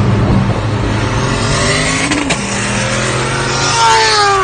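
Supercharged Kawasaki Ninja H2 inline-four motorcycle going past at high speed; its engine note falls in pitch as it goes by near the end. It is heard from inside a car, over the car's own steady engine and road drone.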